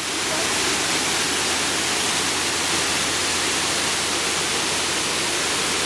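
Wastewater spilling over a row of weir gates into a concrete treatment channel, a steady even rush of falling water.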